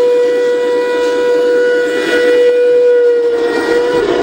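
G-scale model train passing close by: a steady high whine with overtones, which dips slightly and stops near the end, over the rumble of wheels on the track.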